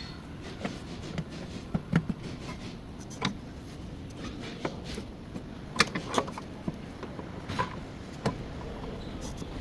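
Irregular metallic clicks and knocks of hand tools and parts being handled during work on a car, about a dozen over several seconds, the sharpest about two, six and eight seconds in, over a steady background hiss.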